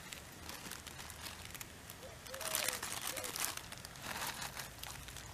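Plastic instant-ramen wrapper crinkling as it is handled, in bursts, the loudest about halfway through and a shorter one near the end.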